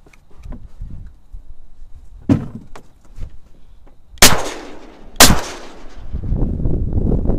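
Two shotgun shots about a second apart, each a sharp crack with a ringing tail, fired at ducks flying over the reeds.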